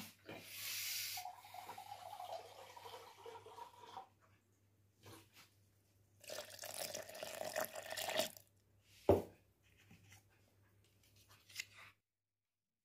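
Kitchen handling sounds as churned butter is worked between a plastic blender jar and a bowl: two spells of scraping, rustling noise and one sharp knock about nine seconds in, over a faint steady hum.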